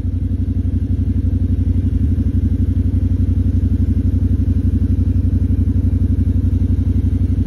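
A vehicle engine idling steadily, loud and low-pitched with a fast, even pulse.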